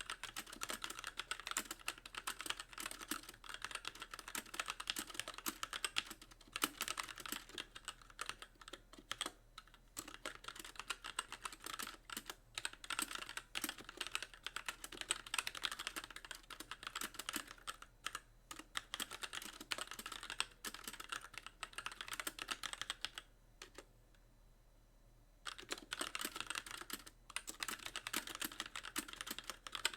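Steady fast typing on a Magicforce mechanical keyboard with light Gateron Clear linear switches and stock keycaps, the keys bottoming out in a dense run of clicks. The typing stops for about two seconds roughly three-quarters of the way through, then resumes.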